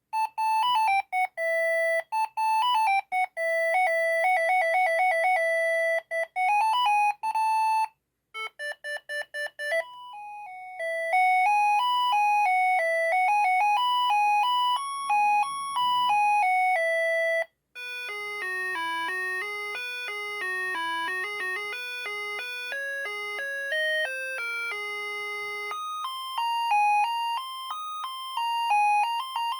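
Siemens ME45 mobile phone ringtones playing from the phone: electronic beeping melodies with a bright, buzzy tone, one tune after another with a short break between them, a new tune starting about every eight or nine seconds.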